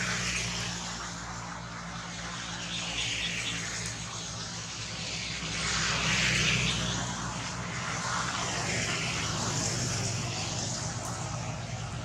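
A steady, low engine drone, with broader noise that swells up and fades away a few times, loudest about halfway through.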